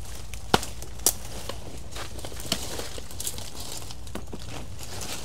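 Footsteps on the forest floor: a few sharp crackling snaps of leaves and twigs, the loudest about half a second, one second and two and a half seconds in.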